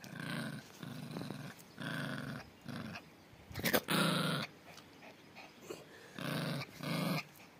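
A young puppy growling in a string of short bursts, the loudest about four seconds in.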